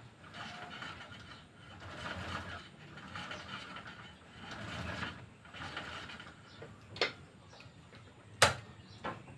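Home gym pulleys running as a rope-rigged pulldown bar is worked in slow repeated strokes, raising and lowering a homemade can weight. A sharp clank about seven seconds in, and a louder one near the end.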